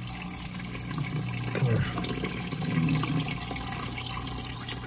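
Water sloshing and trickling in a small turtle tank as a hand moves through the water and gravel, over the steady low hum of the tank's filter.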